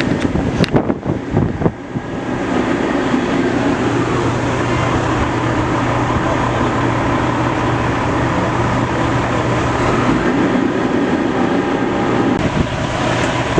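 Fire ladder truck's engine running steadily, a continuous low hum, with a few sharp knocks in the first two seconds.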